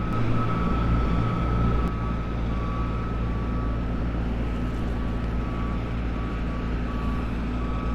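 A faint vehicle reversing alarm beeping at an even pace over a steady rushing noise.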